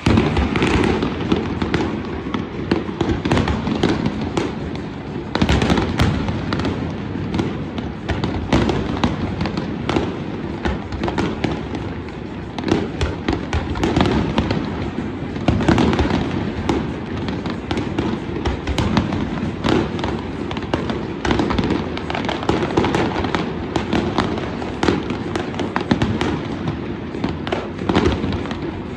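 Fireworks display going off continuously, a dense run of sharp bangs and crackles over a steady rumble of booming shells.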